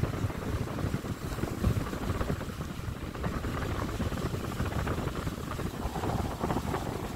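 Wind rushing and buffeting the microphone from a moving car, with road noise underneath.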